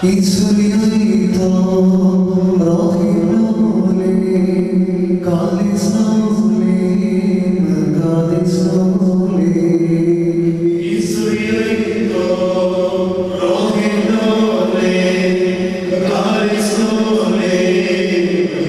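A group of young men chanting a hymn in unison on long held notes, sung into microphones and carried over a loudspeaker.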